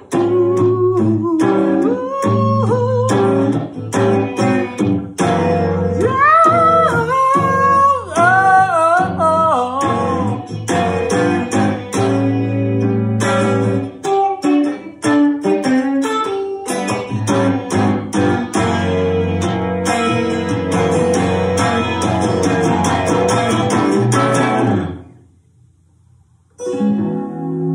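Electric guitar strummed in a steady rhythm, with a man's wordless singing over it for a few seconds early on. The playing stops about 25 seconds in, and after a short silence a new, softer musical sound begins near the end.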